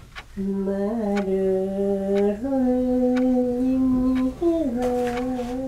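An elderly woman singing a mournful tune to herself in slow, long-held notes. Her voice steps up in pitch about halfway through, then dips slightly near the end.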